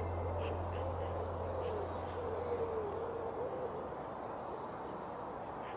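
A pigeon cooing in a repeated, wavering phrase, with small birds chirping faintly. A low hum fades out over the first couple of seconds.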